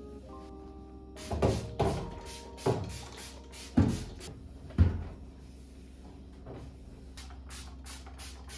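Kitchen handling sounds: a run of sharp knocks and clunks, about five in the first five seconds, then a few lighter taps, as things are set down and cupboard or fridge doors are shut.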